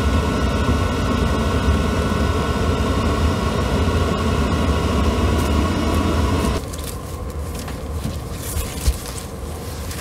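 Chinese diesel air heater running: a steady rumble from its burner and exhaust with a fan whine over it. About six and a half seconds in it cuts off abruptly, leaving quieter background with rustling and a single knock.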